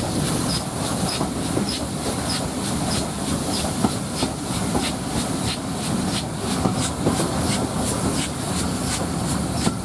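Steam train hauled by an S&DJR 7F 2-8-0 locomotive running along the line, heard from a carriage window: a steady rolling noise with a regular beat about twice a second.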